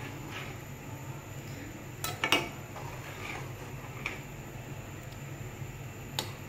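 A spoon knocking and clinking against a pan of boiling milk as it is stirred: a few separate clinks, the loudest a double knock about two seconds in, over a steady low hum.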